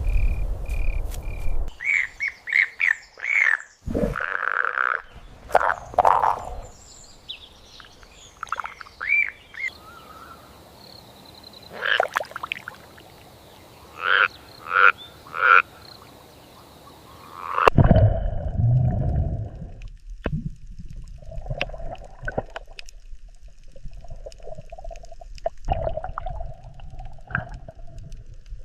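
A run of short animal calls and cries from several clips cut together, the background changing abruptly about three times.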